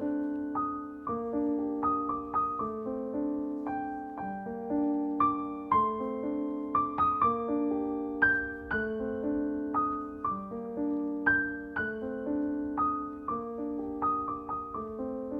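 Background music: gentle, slow solo piano with notes struck in a calm repeating pattern.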